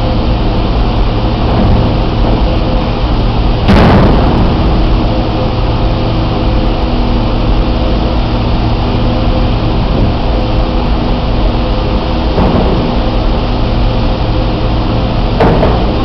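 Catamaran ferry's machinery running with a steady low hum and several held tones. A single loud bang comes about four seconds in, and a few lighter knocks follow later.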